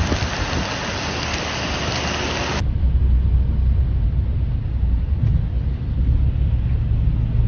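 Steady hiss of heavy rain, cut off suddenly after about two and a half seconds by a loud, deep rumble with almost nothing higher in it.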